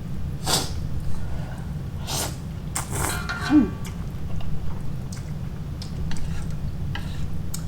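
A person eating ramen: a few short slurps and mouth noises with small clicks, and a brief hummed sound about three and a half seconds in, over a steady low hum.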